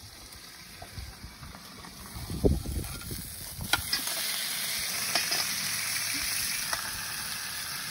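Fish sizzling as it fries in hot oil. A few knocks come before the steady hiss, which grows louder about halfway through and then holds.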